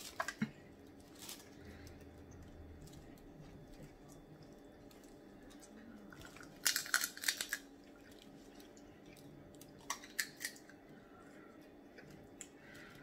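Crab leg shells cracked and pulled apart by hand, heard as a few short clusters of cracks and clicks, the loudest about seven seconds in and another about ten seconds in, over a faint steady room hum.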